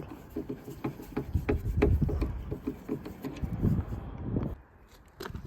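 Rapid light knocks, clicks and rubbing from hands working the original rear number plate, held on with screws and tape, off the car, over a low rumble. The handling stops about four and a half seconds in.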